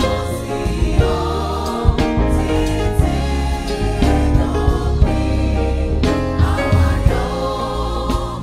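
Gospel choir singing with a live band, steady bass and drum beat underneath.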